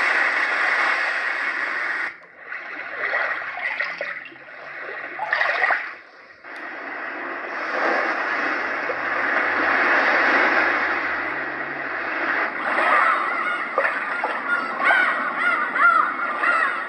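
The Roffie white noise machine's small built-in speaker playing its recorded nature sounds, starting with sea waves. The track changes every few seconds, with brief dips where it switches. Short chirping calls play over running water near the end.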